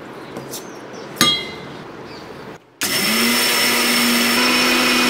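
Electric mixer grinder starting up about three seconds in and running steadily, grinding soaked ragi (finger millet) with a little water in its steel jar. Before it, a single metallic clink about a second in.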